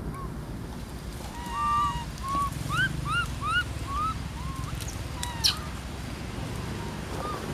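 Young monkeys calling: a run of short, high chirps, each rising in pitch, repeated about eight times over a few seconds, over a steady low rumble. A sharp click sounds about five and a half seconds in.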